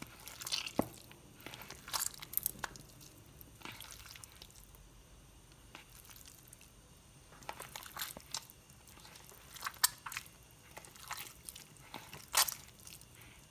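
Softened butter mixed with chopped parsley, lemon juice and olive oil being squeezed and kneaded by hand in a bowl: irregular wet squishes and small clicks, some spells quieter than others.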